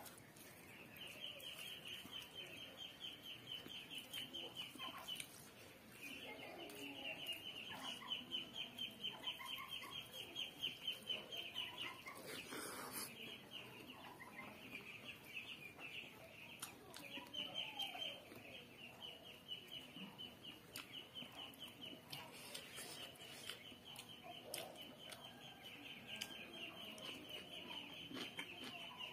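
Faint chewing and mouth sounds of a person eating rice and chicken by hand, under a continuous high, rapidly pulsing trill that drops out briefly twice.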